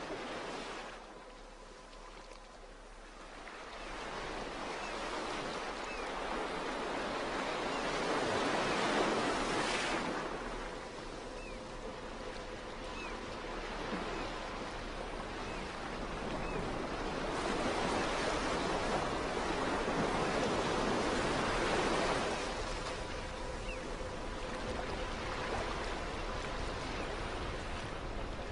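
Ocean surf: waves rushing in and drawing back, the wash swelling and fading in slow surges several seconds apart.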